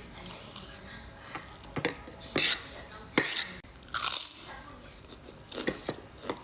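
Close-miked mouth sounds of eating scrambled egg with rice from a spoon: irregular crunching and chewing, loudest about two and a half and four seconds in.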